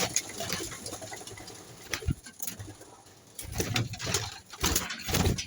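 Domestic pigeons cooing in low, pulsing phrases, with a few sharp clicks and scuffs among them.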